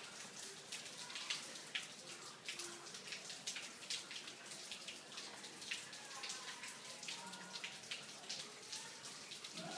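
Rainwater running out of a roof gutter's downspout outlet. It is heard as irregular drips and taps over a steady watery hiss.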